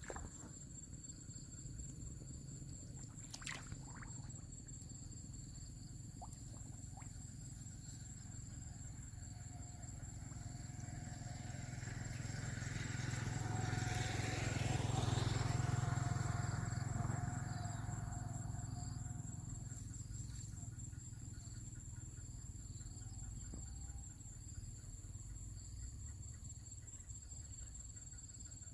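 Insects trilling steadily, high and unbroken, while a motor vehicle passes: its sound builds gradually, is loudest about halfway through and then fades away.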